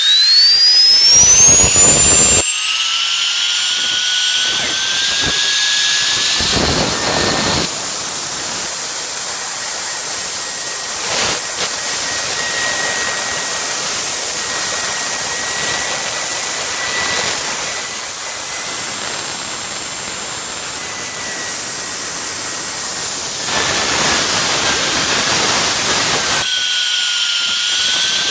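Toy turbocharger keychain whining like a spooling turbo: a high whistle climbs steeply at the start, holds very high over a rushing hiss, then drops back a little near the end.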